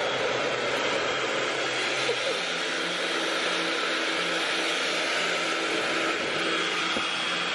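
Dyson Supersonic hair dryer running steadily: a rush of air with a thin high whine, its lower hum shifting about two seconds in.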